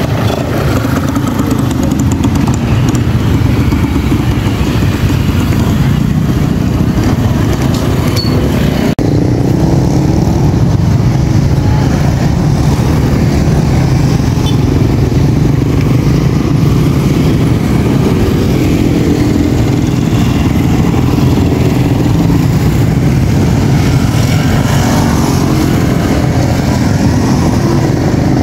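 Engines running steadily and loudly, with no clear pauses.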